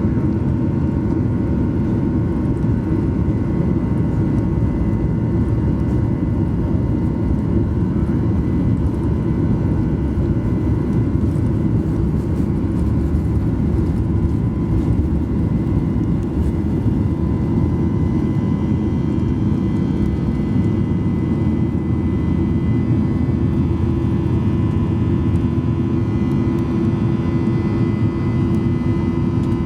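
Boeing 737-800 cabin noise: a steady low drone from the CFM56-7B jet engines and airflow, with a few constant whining tones over it, heard from inside the passenger cabin.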